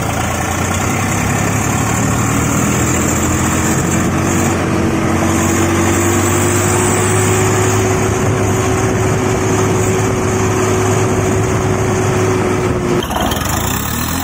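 Tractor engine running steadily under load, with a faint whine rising slowly in pitch; it cuts off about a second before the end.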